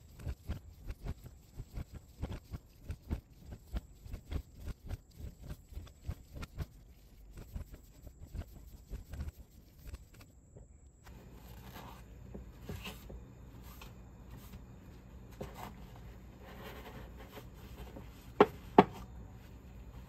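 A quick, irregular run of metal knocks and clicks, about two or three a second, from a hydraulic steering cylinder's rod and end gland being worked by hand during disassembly. This gives way to a quieter stretch with a steady low hum, then two sharp clicks close together near the end.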